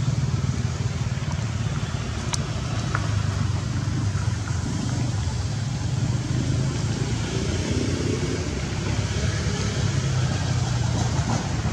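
A steady low engine rumble under a constant hiss, with a few faint clicks.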